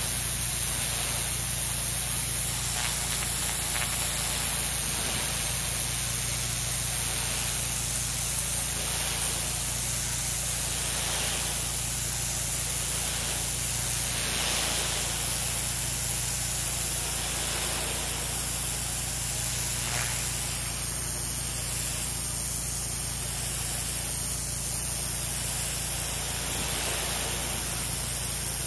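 DeWalt 4000 PSI gas pressure washer running. Its high-pressure water jet hisses steadily as it hits the concrete, over the even hum of its Honda GX270 engine.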